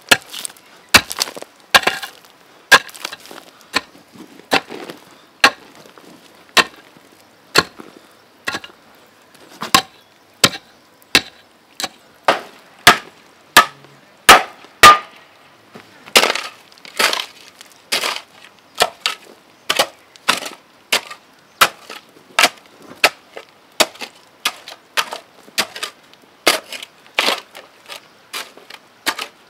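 Garden hoe striking and chopping into stony soil, a sharp strike about once a second, some in quick pairs, with clods and stones rattling.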